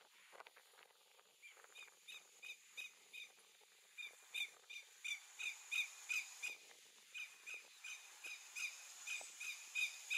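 Greater yellowlegs alarm call: a clear whistled note repeated about three times a second, faint at first and louder from about four seconds in.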